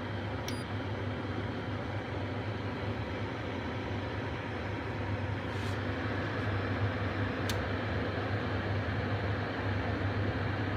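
Diplomat dishwasher running with a steady mains-frequency hum and whirr, with a sharp click about seven seconds in.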